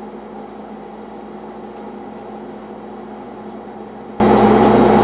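MRI scanner running a scan sequence, its gradient coils making a steady buzzing drone with a low hum. About four seconds in it jumps to a much louder buzz.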